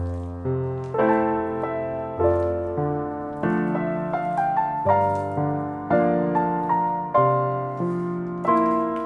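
Background piano music: gentle notes and chords struck in a slow, even rhythm, each ringing out and fading.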